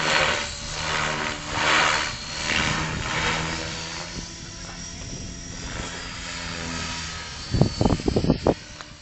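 Helicopter rotor and engine running, a steady hum with a pulsing whoosh about once a second, fading after about four seconds. A cluster of sharp knocks comes near the end.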